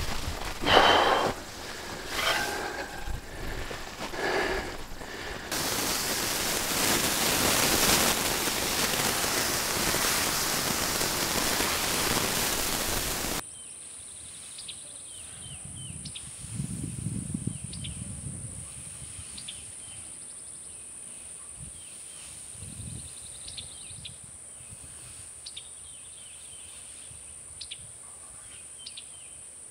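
A loud steady hiss runs through the first half and cuts off abruptly about 13 seconds in. After that come a steady high insect drone and scattered bird chirps, with soft rustling of hay being forked onto a compost pile.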